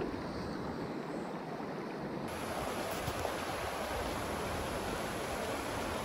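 Steady rushing of shallow creek rapids over rocks. The hiss turns brighter about two seconds in, where the recording changes.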